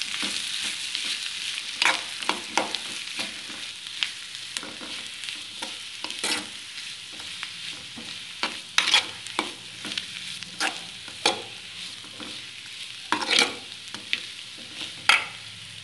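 Metal spoon stirring and mashing boiled potato masala in a metal kadai, with irregular scrapes and clinks against the pan. Under it is a steady sizzle of the spiced onion mixture frying in ghee, which slowly fades.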